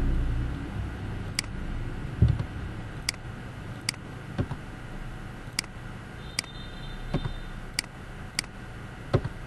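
Computer mouse clicking at irregular intervals, about seven sharp clicks with a few duller knocks between them, over a steady low hum.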